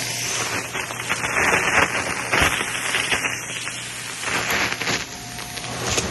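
Shark vacuum running on carpet, with small crunchy debris crackling and rattling up through the nozzle in several surges over the steady motor hum.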